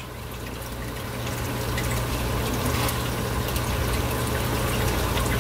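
Calcium reactor effluent trickling from the gas-off chamber's outlet into a small plastic sample cup, growing steadily louder. A steady low hum runs underneath.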